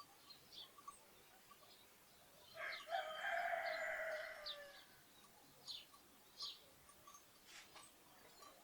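A rooster crows once, a single call of about two seconds that is the loudest sound here, while sparrows chirp briefly before and after it.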